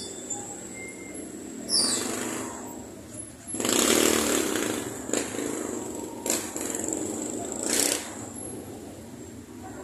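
Busy street traffic with motorcycle and vehicle engines running and passing close by; the loudest pass swells up about three and a half seconds in and lasts about a second. A brief falling high squeal sounds about two seconds in.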